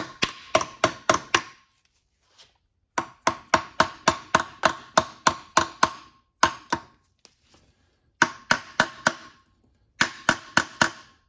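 Hammer tapping on metal in quick runs of light blows, about five a second, each with a brief metallic ring. The runs stop and start again several times.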